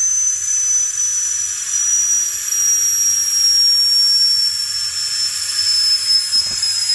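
Pressurized gas rushing out through refrigerator tubing: a loud, steady hiss with a high whistle that slowly falls in pitch.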